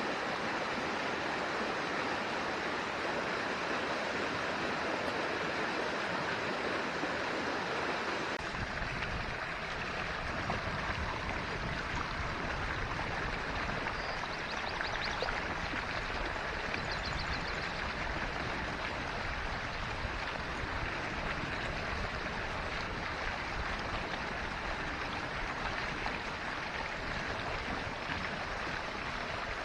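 Forest stream flowing, a steady rush of water. About a third of the way in, the sound takes on a deeper low rumble, and midway there are two faint, brief high trills.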